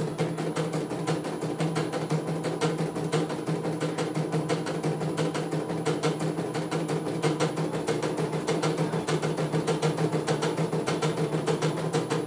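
CNY E900 computerised embroidery machine stitching a design: a rapid, even clatter of needle strokes over a steady motor hum.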